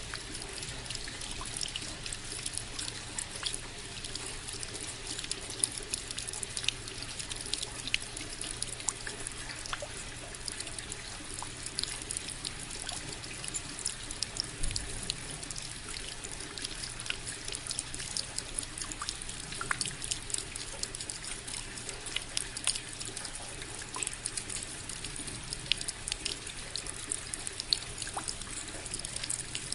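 Falling water: a steady trickle and splash with many small droplet splashes through it, like a tap running into a sink.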